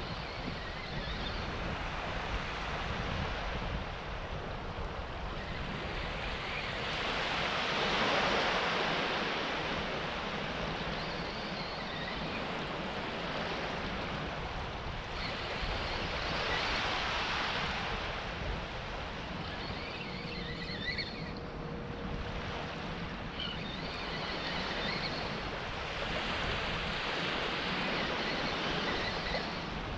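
Small waves washing onto a flat muddy beach, the surf swelling and fading about every eight to ten seconds, with wind rumbling on the microphone.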